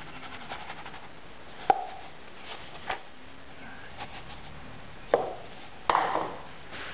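Moulding sand being scooped and tipped into a wooden moulding flask, with a few sharp knocks of the scoop against the flask and sand, the loudest about five seconds in, and a short rush of pouring sand near the end.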